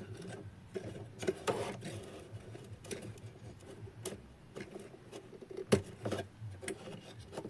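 Light clicks, taps and scrapes of small plastic parts and wires being handled as a Bluetooth speaker's circuit board and LED are pulled out of its plastic housing, with one sharper click about three-quarters of the way through.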